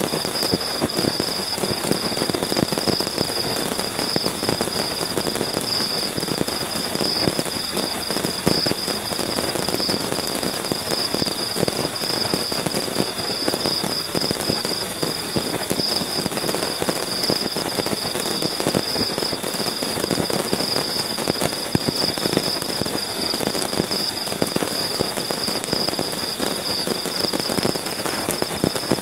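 Heavy rain pattering densely and without a break on a tent's tarp fly, heard from inside the tent, with a steady high-pitched trill running underneath.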